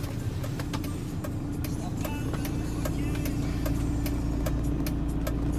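Car cabin noise while driving: a steady low rumble with a constant hum, and frequent light clicks over it.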